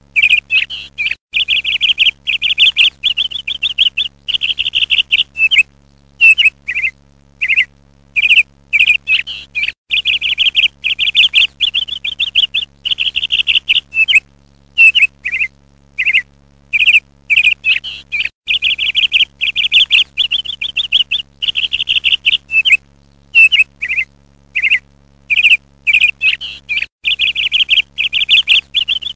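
A bird singing over and over: short chirps and fast trilled phrases at about the same high pitch, with brief pauses between them.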